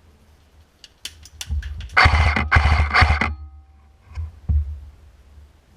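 Airsoft gun firing: a few single clicks, then two rapid full-auto bursts of clattering shots, each about half a second long. Two dull thumps follow.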